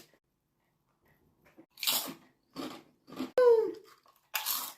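Deep ridged potato chips crunching between the teeth in a few short bites, with a brief falling voiced hum in the middle.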